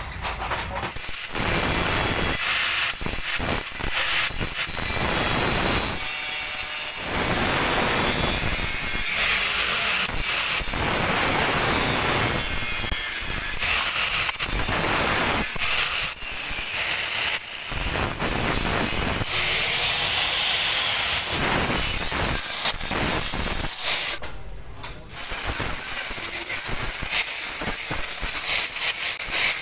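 Electric angle grinder cutting and grinding a steel motorcycle brake disc, running in long stretches, with a brief pause about a quarter of the way in and another near the end.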